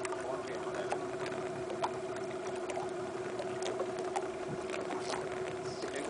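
Glass-bottom boat's motor running with a steady, even hum, while water sloshes against the hull with scattered small knocks and splashes.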